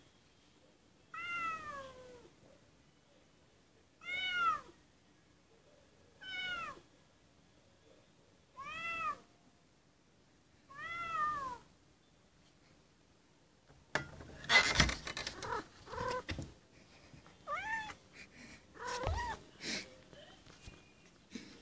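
Kitten meowing at a door, five separate rising-then-falling cries about two seconds apart. About two thirds of the way in comes a burst of knocks and scrapes, the loudest sounds here, with two more meows among them.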